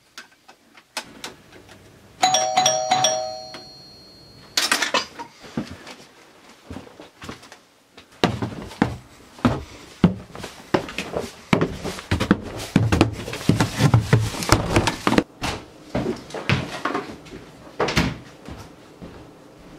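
A doorbell chime rings about two seconds in, its tones held for a couple of seconds. After it comes a long run of knocks, clatters and rustling.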